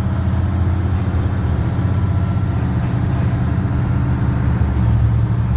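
MAN KAT A1 6x6 army truck's diesel engine running steadily as the truck cruises along a road, a deep even drone.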